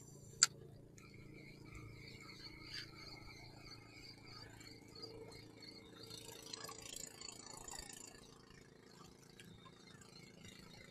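Shimano spinning reel's bail snapping shut with one sharp click about half a second in, then a faint steady whirr as the lure is reeled in.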